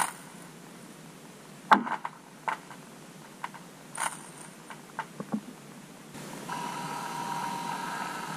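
Fishing lures heard through an underwater microphone beneath lake ice: irregular sharp clicks and knocks from a rattle jig and a robotic lure. From about six seconds in, a steady buzzing hum with a whine sets in.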